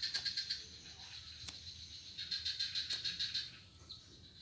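High, rapid pulsing trill from an animal in the background, in two bouts of about a second and a half, with a few faint clicks in between.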